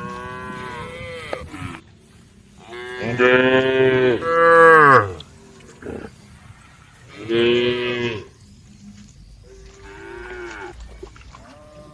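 Cows mooing, four long calls in turn. The second, about three seconds in, is the longest and loudest, and the last is faint.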